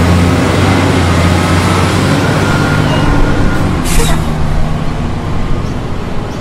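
Heavy diesel truck engine running with a steady low rumble, and a short air-brake hiss about four seconds in as the truck comes to a stop.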